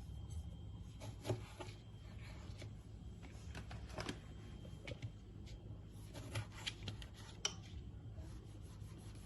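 Knife cutting tomatoes on a cutting board: scattered soft taps and scraping strokes at an uneven pace.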